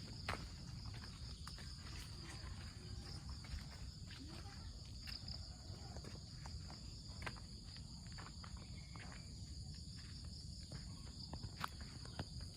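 Steady high-pitched insect chorus with an unbroken chirring drone, with scattered faint clicks and rustles over it.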